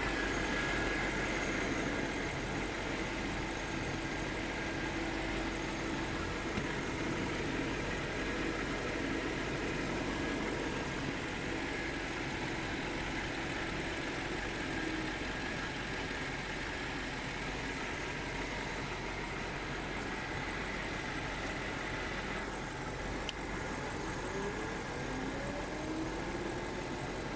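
BMW V8 engine idling steadily and running smoothly, with no misfire or shaking after its intake VANOS solenoid was cleaned.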